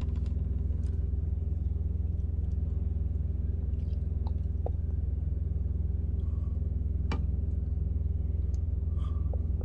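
Steady low rumble of a semi truck's diesel engine idling, heard inside the cab, with a few faint clicks.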